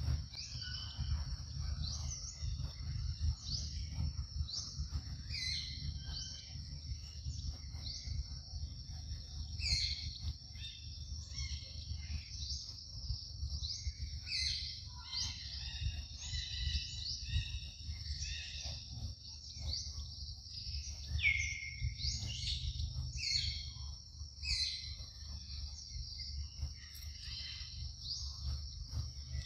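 Outdoor forest ambience: insects droning steadily at a high pitch, with many short bird chirps and calls scattered through, most often in the middle, over a steady low rumble.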